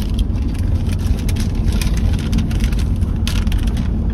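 Steady road and engine rumble inside a moving vehicle's cabin, with paper rustling as cards are handled, loudest about three seconds in.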